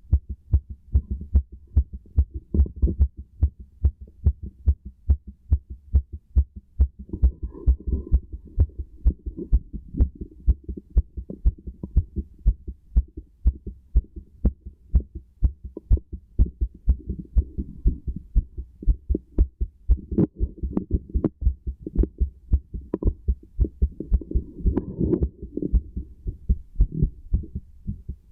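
Human heartbeat heard through a stethoscope: a steady, regular run of low lub-dub thumps. A low rushing noise comes and goes under the beats.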